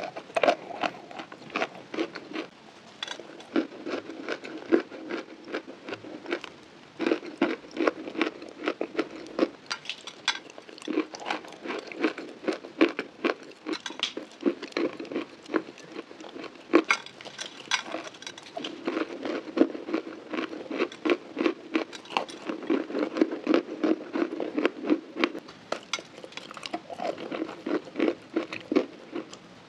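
A person biting and chewing crunchy chalk close to a microphone: a dense run of crackling crunches with sharper, louder bites now and then.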